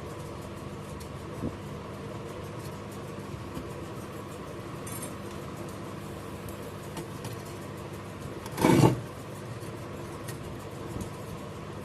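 Steady low machine-like hum with a few faint ticks, and one short, loud noisy burst about nine seconds in.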